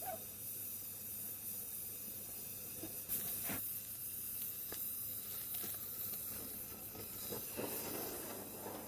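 Handheld gas torch hissing steadily as it heats a small crucible of molten metal for casting. There are a couple of light knocks about three seconds in as the crucible is lifted and tipped into the mould.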